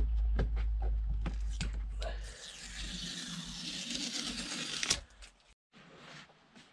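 Adhesive vinyl decal being peeled off a plastic dashboard plate: a few light handling clicks, then a couple of seconds of continuous ripping noise as the sticker lifts, ending in a sharp snap as it comes free.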